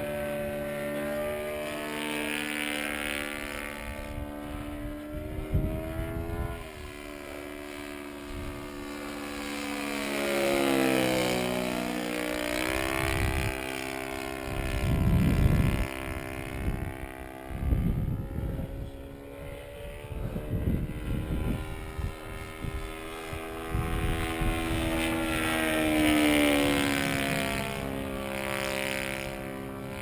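Radio-controlled Extra 260's YS 120 glow engine running a straight pipe, flying overhead, its pitch sweeping up and down as the plane passes and changes throttle. Gusts of wind buffet the microphone partway through.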